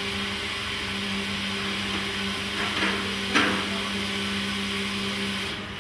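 Copper pot still's equipment running with a steady low hum and a hiss over it, which cut off abruptly near the end. A short knock comes a little past halfway.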